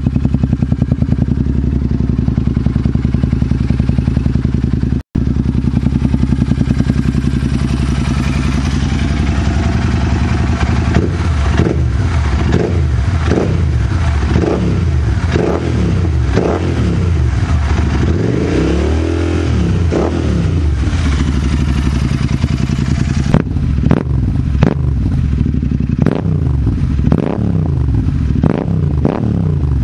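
A motorcycle engine running steadily, then rising and falling in pitch as it is revved. Sharp clattering knocks join in during the last few seconds.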